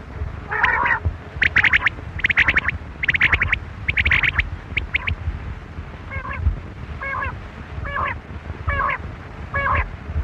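Quail calling: a run of loud, rapidly pulsed call phrases, then five shorter calls evenly spaced about a second apart, over low wind rumble on the microphone.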